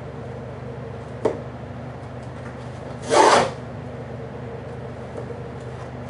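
A small cardboard box being handled and opened by hand: a short click, then about two seconds later a loud half-second scraping rasp of cardboard or tape. A steady low hum runs underneath.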